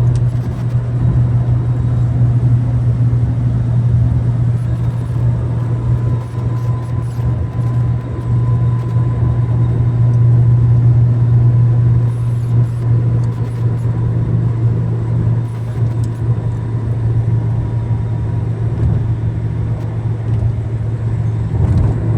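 Car running with a steady low drone, heard from close by.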